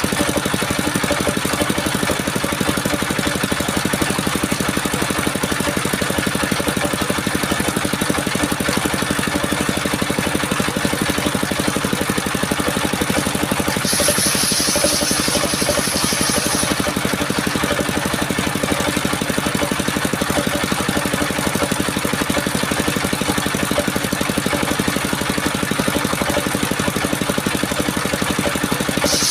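Engine of a portable wood sawmill running steadily under power. About halfway through, a higher hiss joins it for roughly three seconds.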